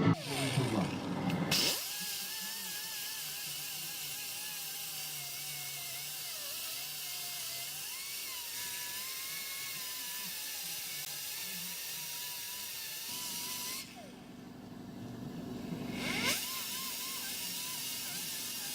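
A workshop power tool running with a steady hiss and a faint wavering whine. The whine falls away in the first second or two. Near the end the hiss drops out under a low hum, then a rising whine brings it back.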